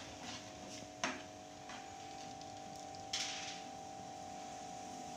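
A metal spoon knocking and scraping against an aluminium saucepan of noodles being stirred on a gas stove: a sharp clink about a second in and a short scrape around three seconds in, with a few lighter taps, over a steady faint hum.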